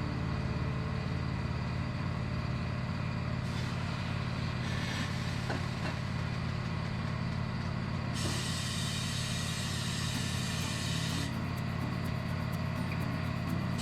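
Tyre changer at work: a steady motor hum, with compressed air hissing briefly a little after three seconds in and again for about three seconds from about eight seconds in.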